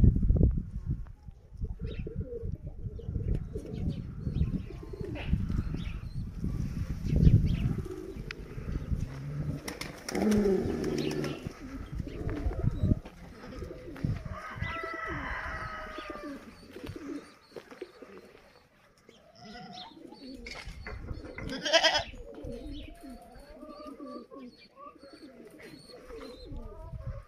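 Pigeons cooing among other farm animal calls, over a low rumble that dies away about halfway through.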